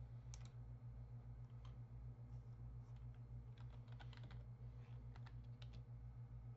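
Faint typing on a computer keyboard: a few scattered keystrokes, then quicker runs of clicks in the second half, over a low steady hum.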